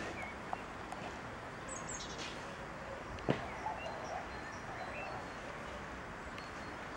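Outdoor background hiss with a few faint, short bird chirps and one sharp tap about three seconds in.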